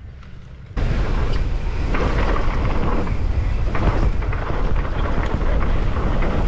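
Wind buffeting the camera microphone and mountain bike tyres rumbling over a dirt track as the bike rolls in and picks up speed, starting suddenly about a second in, with irregular knocks from bumps in the track.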